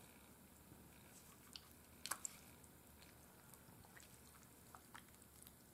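Faint wet squishes and drips as a flour-coated chicken piece is dipped and turned in a bowl of egg wash, with a few small clicks, the loudest about two seconds in.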